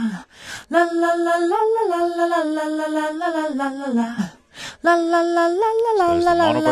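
A cappella backing vocal sample: a single voice sings long, held notes in a slow phrase. It breaks off briefly about half a second in and again a little past four seconds.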